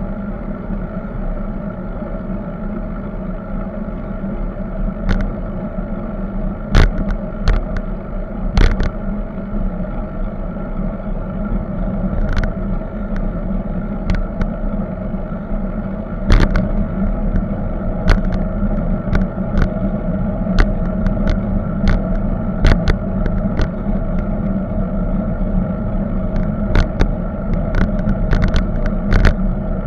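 Steady rumble of wind and road vibration picked up by a camera mounted on a moving bicycle, with sharp clicks and knocks scattered throughout as the bike and its mount jolt over bumps in the road.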